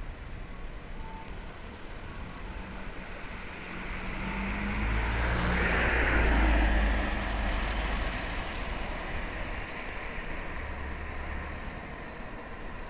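A car driving past on the road, its sound swelling to a peak about six seconds in and then fading, over a steady hum of traffic.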